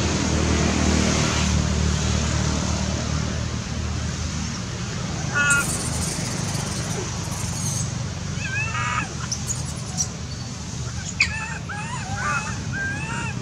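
Baby long-tailed macaque crying with short, high squealing calls in bunches, most in the last few seconds, over a steady low hum.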